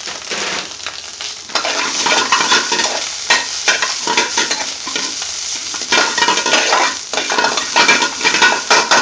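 Spinach and onion sizzling in hot oil in an aluminium frying pan as a metal spoon stirs it, with frequent clinks and scrapes of the spoon against the pan. The sizzling grows louder about a second and a half in.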